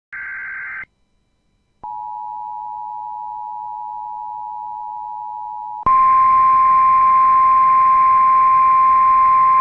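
Emergency Alert System tones on NOAA Weather Radio for a snow squall warning. A short burst of warbling data tones comes first, the tail of the coded alert header. After a second's gap a steady two-tone attention signal sounds for about four seconds, and then a louder single steady warning tone plays over radio hiss.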